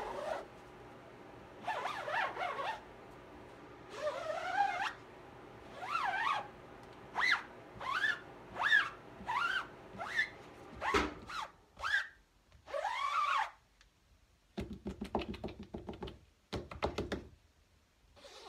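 A rubber squeegee is dragged back and forth across the ink-loaded mesh of a screen-printing frame. It squeaks in a string of short rising-and-falling squeaks. Partway through there is a knock, then a quick scraping rattle.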